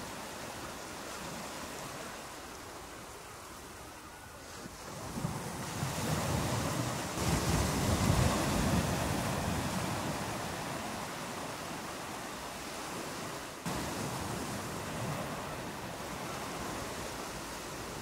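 Ocean surf washing onto a beach: a steady hiss of water, with one wave building up about a third of the way in and slowly washing back out.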